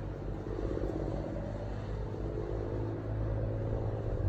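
Steady low engine drone, with a hum of higher tones over it and no breaks.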